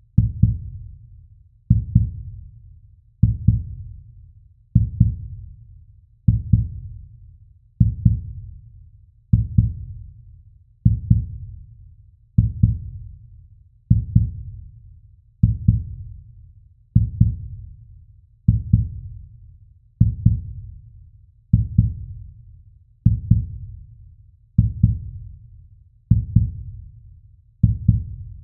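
Slow heartbeat sound effect: deep low thumps at about one beat every 1.6 seconds, each starting sharply and fading slowly into the next.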